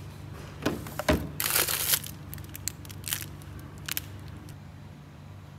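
Plastic ice-pop wrappers crinkling as a hand rummages through a chest freezer and picks one out, after a couple of sharp knocks against the freezer. A steady low hum runs underneath.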